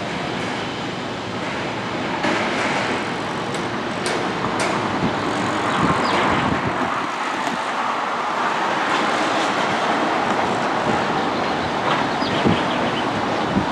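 Steady rumble and noise of a moving vehicle, with a few scattered clicks and knocks.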